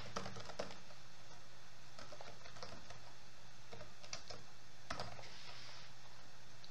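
Typing on a computer keyboard: scattered key presses, some in short quick runs, with one sharper stroke about five seconds in, over a faint steady hum.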